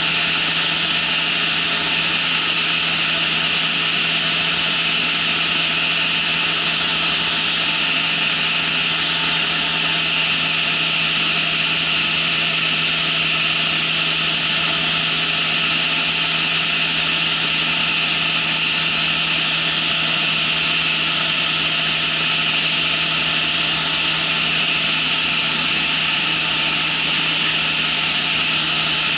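Ultralight trike's engine running steadily in flight, a constant hum under heavy wind rush on the microphone.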